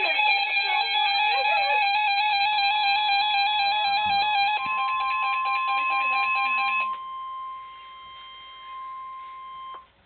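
Midland WR-100 weather radio sounding its alert: a loud two-tone alarm warble, joined a few seconds in by the steady high NOAA Weather Radio warning tone. The warble cuts off about seven seconds in, and the steady tone carries on alone, more quietly, until it stops just before the end. The tone signals that a warning-level alert, here a severe thunderstorm warning, is being received.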